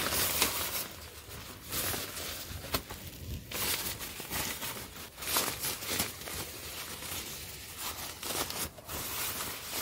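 Synthetic tent fabric of a Gipfel Fira 3 door flap being bunched and rolled up by hand, rustling and crinkling in uneven swells.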